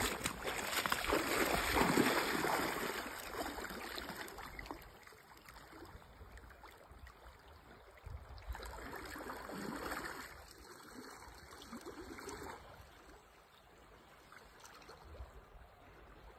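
Creek water sloshing and swirling around legs wading through a shallow stream, over the steady flow of the water. It is loudest in the first few seconds, swells again about eight seconds in, then eases off.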